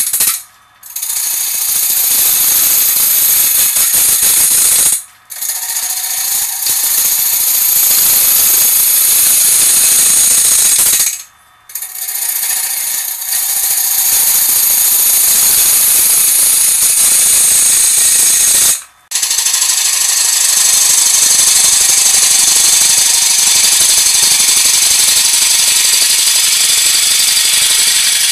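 A turning tool cutting into a 16-inch red oak bowl blank spinning on a wood lathe, a loud rough hiss of chips tearing off the wood. It stops briefly three or four times and starts again.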